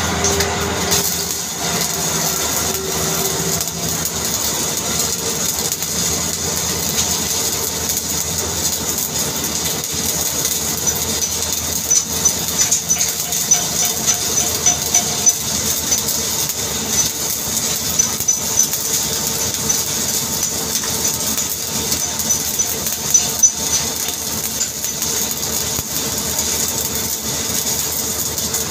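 Shielded metal arc (stick) welding overhead on a steel girder in the 4G position. The electrode's arc crackles and sizzles steadily, with sharper pops through the middle stretch.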